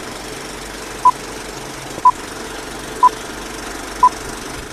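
Film-leader countdown: a short, high beep once a second, four times, over the steady rattling whir of a running film projector.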